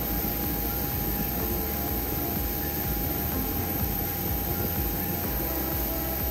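Jet aircraft engines running steadily: a low rumble with a constant whine on top.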